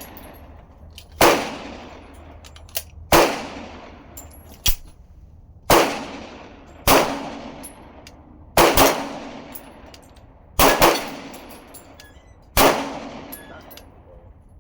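Springfield XD Mod.3 pistol firing a string of about nine shots at an unhurried pace, two of them in quick doubles. Fainter sharp clanks fall between the reports.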